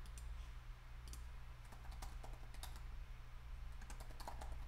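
Faint typing on a computer keyboard: irregular clusters of sharp key clicks.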